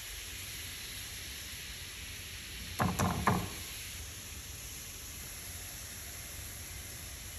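Three tennis balls dropped one after another into a hot frying pan, three quick thuds about three seconds in, over a steady sizzling hiss from the pan.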